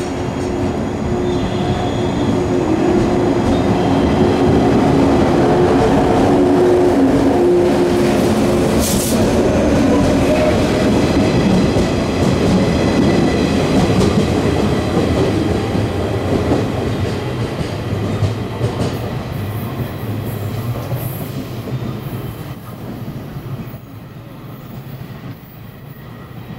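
JR 115-series electric multiple unit departing, its traction motors and wheels running over the rails as the cars pass close by. The sound builds in the first few seconds, stays loud, then fades away after the rear car has gone by.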